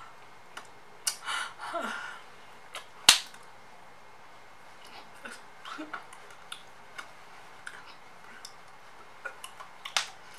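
A person's short wordless vocal noises, one sliding down in pitch, then scattered small clicks made by hand or mouth, with one loud sharp click about three seconds in and another near the end.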